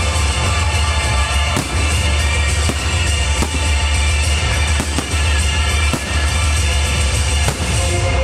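Music with a heavy, steady bass line, with fireworks bursts banging out over it now and then.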